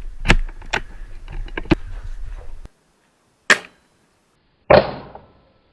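Upgraded VSR-10 spring-powered airsoft sniper rifle: handling clicks and rustling, then two sharp reports about a second apart, the second louder with a short fading ring.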